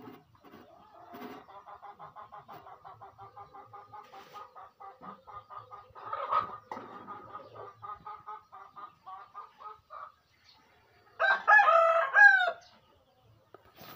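A chicken clucking in a long run of quick, even clucks, about five a second, then a rooster crowing once, the loudest sound, about eleven seconds in. A single sharp knock comes about six seconds in.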